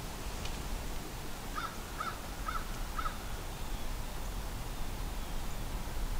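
An animal calling four times in quick succession, short calls about half a second apart, over a faint steady background noise.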